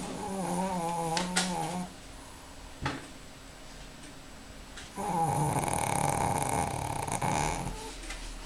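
Pekingese dog snoring in its sleep: two long, wavering snores, one at the start and another about five seconds in, with a short click between them.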